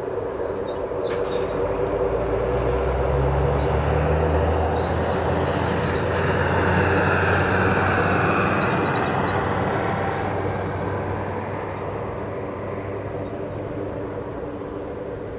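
The four turboprop engines of a Lockheed WC-130J Hercules running as the aircraft taxis past: a steady propeller drone over a low rumble, growing louder to a peak about halfway through and then fading.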